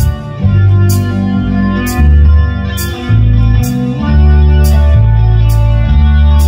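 Live band playing: electric guitar chords over heavy bass notes that change about once a second, with a sharp high hit marking a steady beat about once a second.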